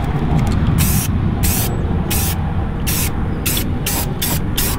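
Krylon aerosol spray-paint can hissing in short, separate bursts, about nine of them and coming quicker toward the end, as paint goes onto freshly welded traction-bar brackets. A steady low rumble runs underneath.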